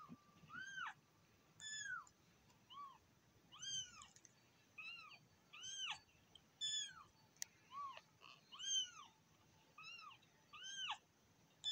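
Kittens mewing over and over, about a dozen short high calls, each rising and falling in pitch, coming a little under a second apart. They are recorded kitten cries played to the cats from a phone.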